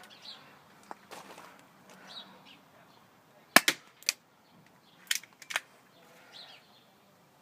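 BB gun firing: sharp cracks in two short groups, three near the middle and two more about a second and a half later.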